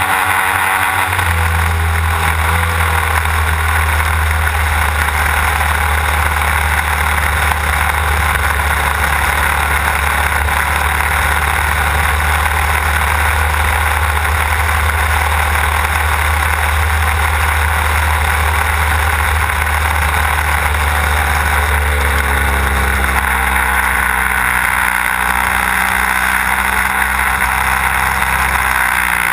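Desert Aircraft DA-150 twin-cylinder two-stroke petrol engine of a large RC aerobatic plane, heard close up from on board while running hard with its propeller turning. About 22 seconds in, its pitch drops, then climbs again near the end.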